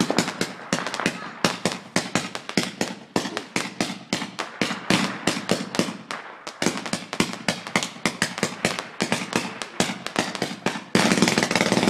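Many fireworks going off across the neighbourhood at once: an uneven, rapid barrage of sharp bangs and pops, several a second. Near the end it changes abruptly into a steady, dense crackling rush.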